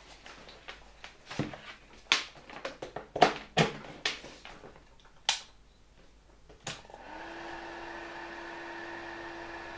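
Clicks and knocks from handling the 1965 Fema RSW-1 hair dryer and working its controls. About seven seconds in, after a sharp click, it switches on and runs steadily: the hum of its small SAZ-2 motor under the rush of the fan.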